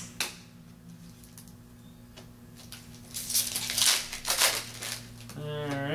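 A trading card pack's wrapper being torn open and crinkled: a few rustling bursts between about three and five seconds in, over a steady low hum.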